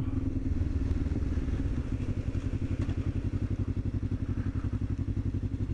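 Motorcycle engine running steadily at low revs, with an even, fast pulsing beat.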